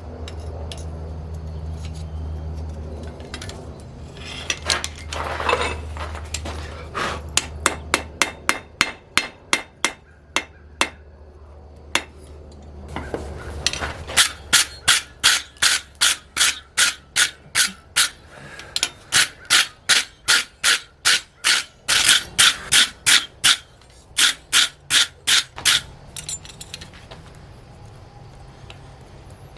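Blacksmith's hammer striking steel on an anvil in runs of rapid ringing blows, about three a second, with short pauses between runs. A low steady hum sits under the first several seconds.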